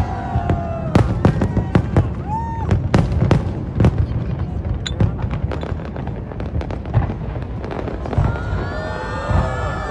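Fireworks display: a rapid, irregular series of sharp bangs and crackle from shells bursting overhead. A short whistle rises and falls about two and a half seconds in, and several wavering tones overlap near the end.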